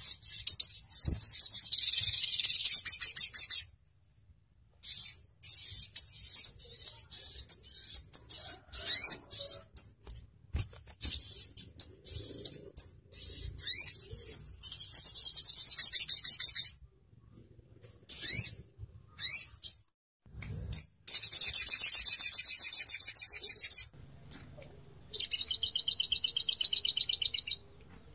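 Sogon (sogok ontong) bird song: long, very fast, high trills of two to three seconds each, four times, with short chirps and quick rising whistles between them.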